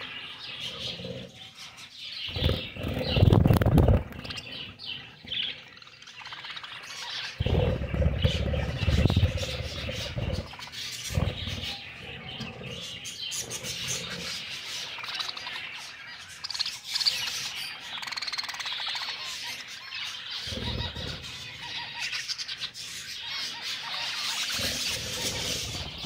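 A flock of budgerigars chirping and chattering in a wire cage, with many short overlapping calls. Two louder stretches of low rumbling noise come about three seconds in and again around eight to ten seconds in.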